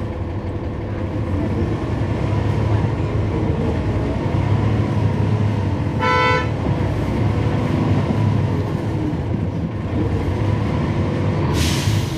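Cummins ISL9 diesel engine of a 2012 NABI 416.15 transit bus running steadily, heard from on board as a low drone. A short pitched tone sounds about six seconds in, and a short hiss comes near the end.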